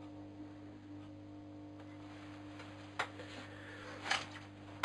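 Electric potter's wheel turning slowly, its motor giving a steady low hum, with two sharp clicks about three and four seconds in.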